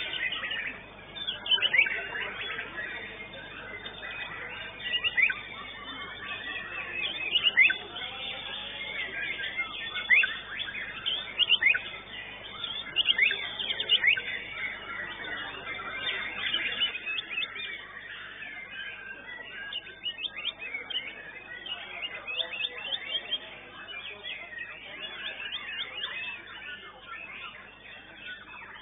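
White-rumped shama (murai batu) singing in a contest cage: a varied run of sharp whistled notes and quick chirps, stronger during the first half and fainter later.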